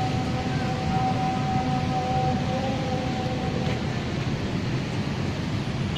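Steady outdoor noise, heaviest at the low end, typical of wind on the microphone mixed with distant traffic. A faint held tone sounds over it and fades out about four seconds in.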